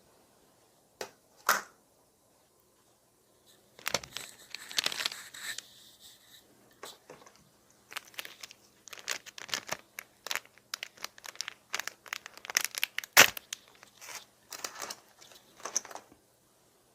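Plastic packaging being torn open and crinkled: two sharp clicks about a second in, then a long stretch of crackling and rustling.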